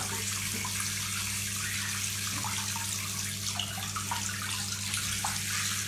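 Handheld shower sprayer running steadily, its spray hissing and splashing into a bathtub full of water.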